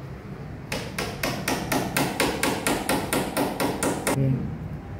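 Hammer blows in a quick, even run of about sixteen strikes, roughly four a second, starting under a second in and stopping about a second before the end, as the base of a wall display panel is fixed in place.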